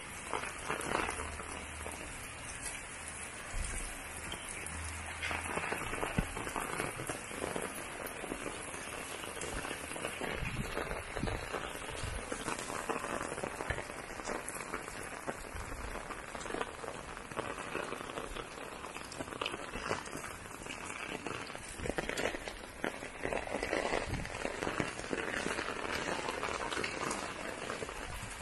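Heavy rain falling steadily, with many close drops striking hard surfaces.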